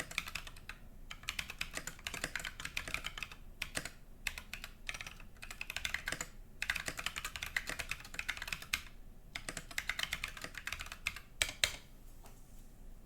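Fast typing on a mechanical keyboard with Holy Panda tactile switches and tall SA-profile keycaps on an aluminium plate and case, in quick runs of keystrokes with short pauses. The typing stops about a second before the end.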